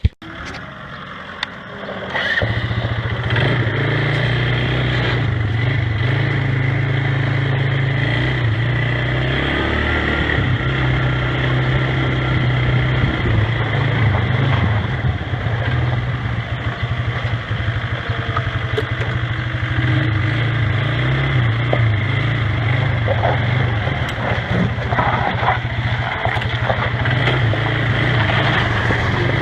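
Gehl 5240 skid-steer loader's engine starting about two seconds in, then running steadily with a loud low drone.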